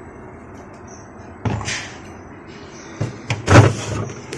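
Plastic food containers and bowls being handled in a refrigerator: a short scrape about a second and a half in, then a loud knock as a container is set down or bumped, and a few more clatters near the end.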